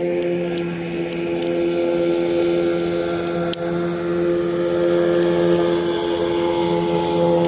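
A boat's outboard motor running at a steady pitch out on the river, with a campfire crackling and popping over it.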